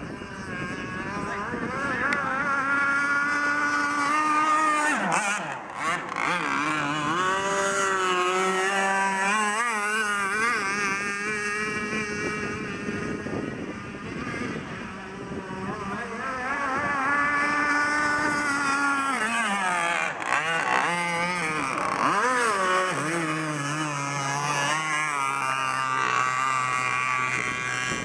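Gas-powered RC boat engine running hard, its pitch wavering and repeatedly rising and falling, with brief drops about five and twenty seconds in.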